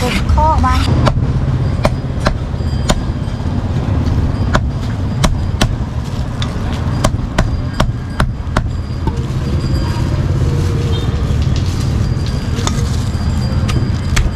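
Steel cleaver chopping roast meat on a thick round wooden chopping block: sharp, irregular knocks, several in quick succession, then a pause of a few seconds before a last couple of strikes.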